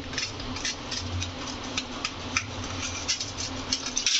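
Light, irregular clicks and scrapes of kitchen utensils handling a toasted sandwich: a wooden spatula on a nonstick tawa, then a pizza-cutter wheel on a steel plate, over a steady low hum.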